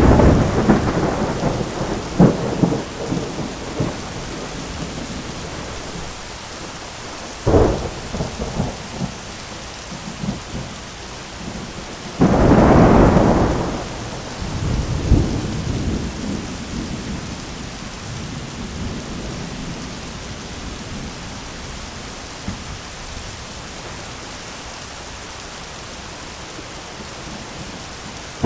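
Thunderstorm: steady heavy rain with thunder. A rumble fades over the first few seconds, a sharp crack comes about a quarter of the way in, and a long, loud peal near the middle rolls off over a few seconds, leaving rain alone until another peal starts right at the end.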